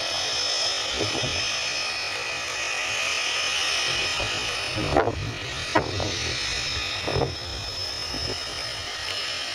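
Steady buzzing drone of a de Havilland Canada DHC-3 Otter float plane's engine on its approach, with a high whine above it. Three brief knocks come in the second half.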